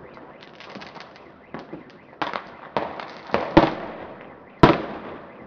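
Fireworks going off: a run of sharp bangs at irregular intervals, faint at first and louder in the second half, the loudest near the end, each trailing off in an echoing tail.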